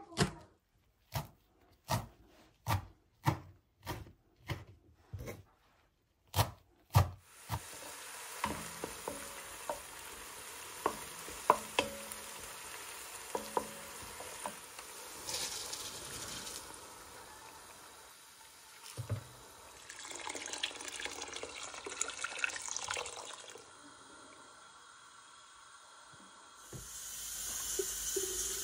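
A knife chops fresh green herbs on a wooden cutting board: about ten sharp strokes, roughly one a second. Then chopped herbs sizzle in hot oil in a pot, with a few clicks as a spoon stirs against the pan. Near the end, water starts pouring from a jug into an enamel kettle.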